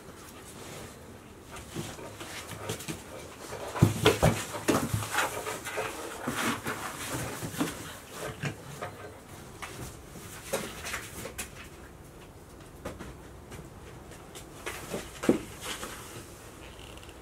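Two-month-old Golden Retriever puppies whimpering and yipping as they play, with scuffling. It is busiest from about four seconds in to eleven seconds in, with one more sharp sound near the end.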